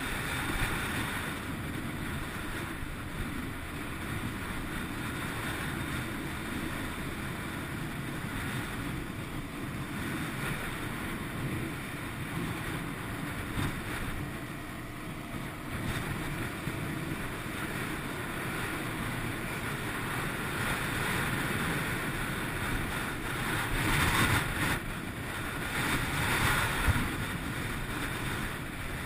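Wind rushing over a helmet-mounted camera microphone on a moving 2011 Honda VFR800 motorcycle, with road and engine noise underneath. The noise swells louder near the end.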